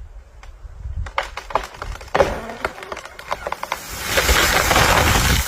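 A tree's trunk cracking and splintering under an elephant's push, a run of sharp snaps, then a long rushing crash of branches and leaves as the tree goes over.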